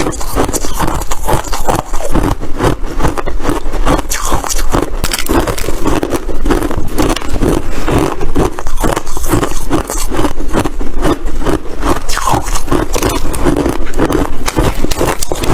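Crunchy white ice being chewed close to the microphone: a dense, continuous run of loud crunches and crackles.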